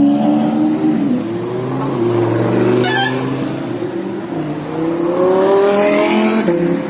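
Lamborghini supercar engines accelerating hard: a Lamborghini Aventador's V12 rises in pitch and drops at an upshift about a second in, then another Lamborghini revs up and shifts again near the end, with a brief sharp crackle about three seconds in.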